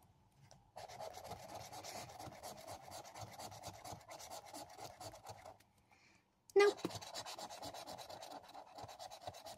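Scratchcard being scratched off: rapid scraping strokes over the card's scratch-off coating. The scratching stops for about a second in the middle, then starts again with a short sharp sound.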